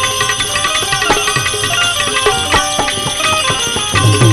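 Instrumental interlude of Indian devotional folk music (santvani), with no singing: a melody of short, quickly fading notes over hand-drum beats.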